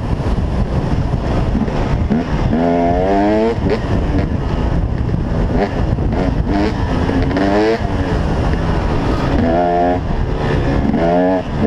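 2008 KTM 300 XC-W two-stroke dirt bike engine running hard on a trail ride, revving up through the gears several times with its pitch climbing, then dropping back between pulls.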